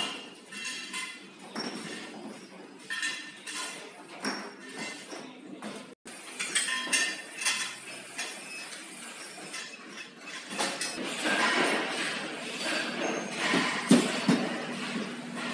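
Workshop clatter: metal parts clinking and knocking in short, irregular strikes over the factory's background noise. The sound cuts out briefly about six seconds in and grows busier and louder from about ten seconds on.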